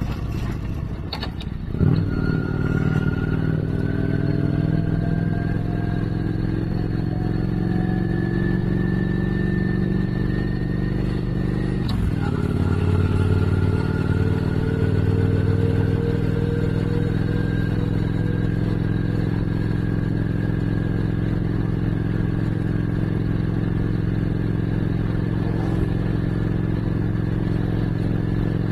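Motorcycle engine under way, pitch rising as it pulls through a gear. It shifts twice, near the start and about twelve seconds in, then climbs slowly again.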